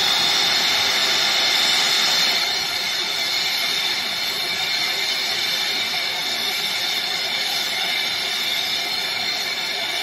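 Hand-held gas-cartridge torch flame burning with a steady loud hiss as it heats a refrigerator filter-drier red-hot to braze the capillary tube into it. The hiss cuts off right at the end.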